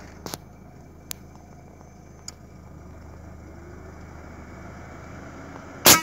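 One shot from a tuned Menaldi Magnum 6.35 mm PCP air rifle near the end: a single short, loud report over a steady low rumble, with a few small clicks before it.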